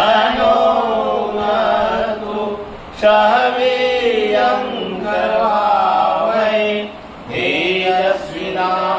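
A small group of men and women chanting a Hindu devotional prayer together in unison, in drawn-out phrases with short pauses for breath between them.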